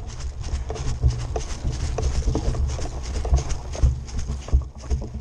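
Running footsteps on grass, about two to three a second, with equipment rattling and knocking against the rifle-mounted camera, over a low rumble of wind and handling on the microphone.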